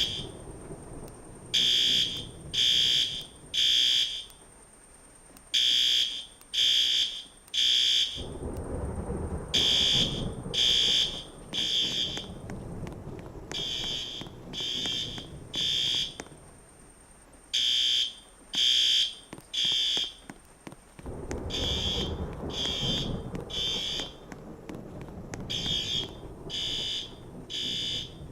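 Fire alarm horn-strobes, the System Sensor L-series, sounding the temporal-3 evacuation pattern: three high-pitched horn blasts about a second apart, then a pause, repeating about every four seconds. A low rumble swells up twice beneath the horns, about a third of the way in and again past two-thirds.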